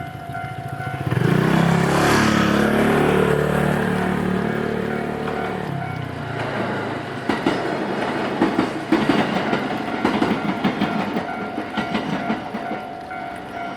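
Nankai Koya Line electric train passing through a level crossing. Its motor and running noise swell about a second in and stay loud for several seconds, then the wheels clack irregularly over the rail joints. The crossing's warning bell rings steadily throughout.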